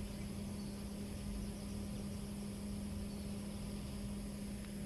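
Steady outdoor background noise: a low rumble and hiss with a constant low hum, and no distinct events.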